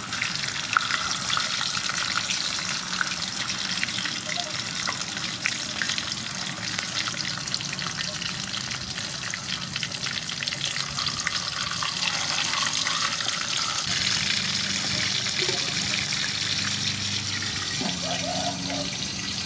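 Whole sea fish shallow-frying in hot soybean oil in an aluminium wok: a steady crackling sizzle with fine spattering pops, a little louder after a second fish goes in.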